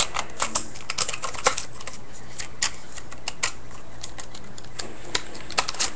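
Irregular light clicks and taps from hands working with small objects at close range, bunched near the start and again near the end, over a faint steady low hum.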